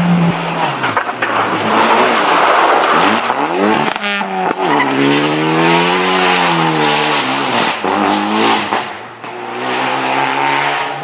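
Renault Clio rally car driven hard through a hairpin. The engine's pitch climbs and drops repeatedly with throttle and gear changes, over the hiss of tyres scrabbling and throwing loose gravel. The engine sound fades away about nine seconds in.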